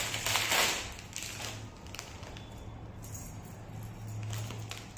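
Plastic packaging crinkling as a metal kada bracelet is unwrapped by hand, loudest in the first second and dying down to faint handling taps, over a low steady hum.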